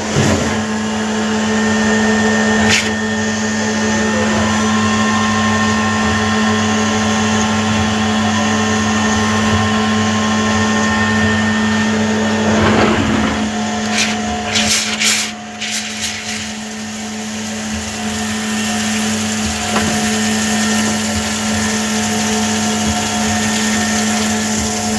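Machine tool running steadily with a constant motor hum and whine. A few sharp clicks come about two-thirds of the way through, after which the pitch of the whine changes.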